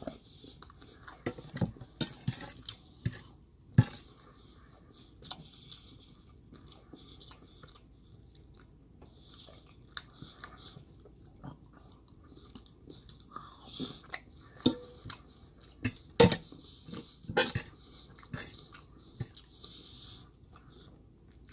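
Close-up chewing of a mouthful of rice, with a metal fork clinking and scraping against a stainless steel bowl: sharp clinks scattered through, the loudest about four seconds in and again in a cluster near the end.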